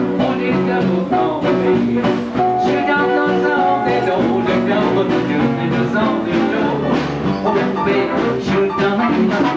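Swing big band playing live: sustained ensemble chords over a steady, regular beat.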